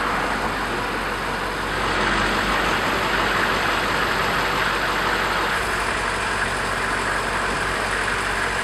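Large vehicle's diesel engine idling steadily, getting a little louder about two seconds in.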